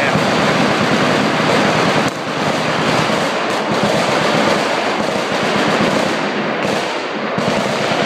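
Automatic fire from several machine guns at once along a firing line, the overlapping shots blending into one continuous rattle, with a brief dip about two seconds in.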